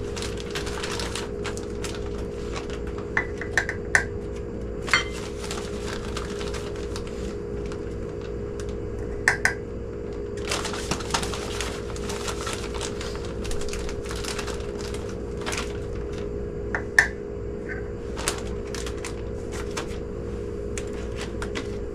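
Light taps, rattles and a few sharp clinks of a measuring cup against a glass canning jar as raisins are scooped and dropped in, over a steady background hum.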